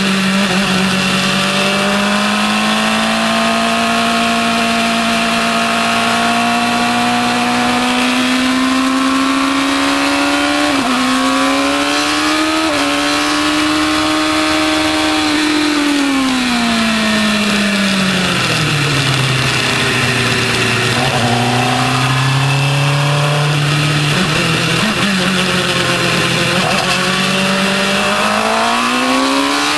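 Formula 1000 open-wheel race car's 1000 cc motorcycle engine at racing speed, heard from on board. The revs hold with two quick jumps in pitch midway, then fall for a slow section and climb again near the end as the car accelerates.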